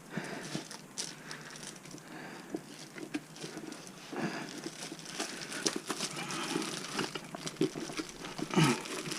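Tyre being worked by hand onto an electric skateboard's hub-motor wheel: gloved hands rubbing and scraping on the rubber tyre and rim, with irregular clicks. It gets busier about halfway through.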